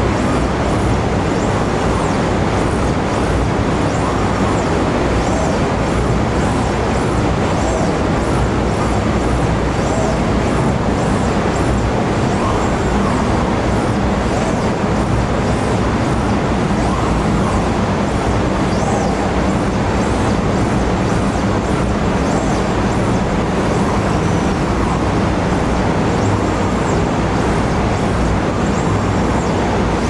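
A steady, even rushing noise like static, spread across all pitches and unchanging in level throughout, with faint brief chirps high up.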